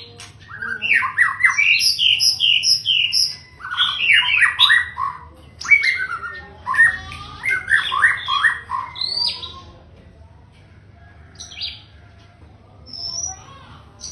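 Male white-rumped shama singing: fast, loud runs of clear whistled notes, many sweeping downward, for about nine seconds, then only a few scattered notes.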